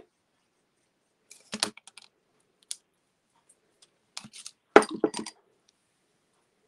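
Scattered light clicks and taps of craft supplies being handled on a desk. A liquid glue bottle is set down and paper pieces are handled, with a small cluster about one and a half seconds in and a louder one about five seconds in.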